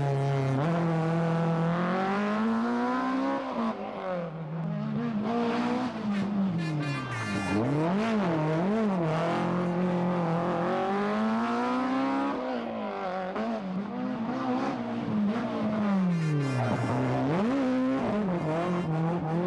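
BMW M3 E30 rally cars' four-cylinder engines revving hard, the pitch climbing and then dropping sharply again and again through gear changes and lifts for corners. Two cars pass in turn.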